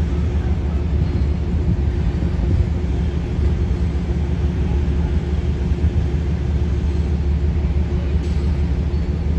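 Steady low engine rumble with a faint steady hum over it, running evenly without change.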